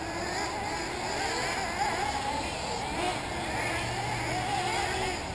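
Several 1/8-scale nitro RC buggy engines running at once, their overlapping high whines rising and falling in pitch as the cars accelerate and slow through the track.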